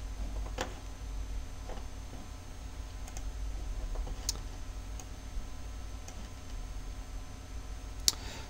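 A few sparse, separate computer mouse clicks over a steady low hum.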